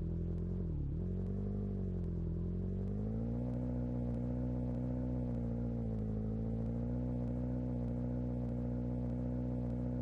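A motor running steadily with a low hum, its pitch dipping briefly about a second in, then rising slightly around three seconds in and holding.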